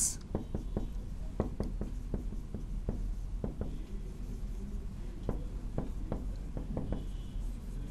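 Marker pen writing on a whiteboard: a string of irregular short ticks and scrapes as the tip strokes out letters.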